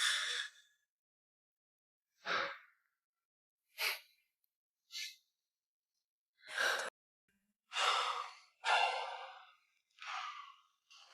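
A man's breathy non-verbal vocal sounds: about eight short sighs, gasps and exhalations, one after another, with dead silence between them.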